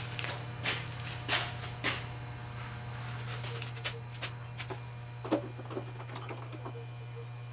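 Irregular clicks and light knocks of a pressure-washer pump being handled and tried against the motor shaft, most of them in the first two seconds and fainter ones later, over a steady low hum.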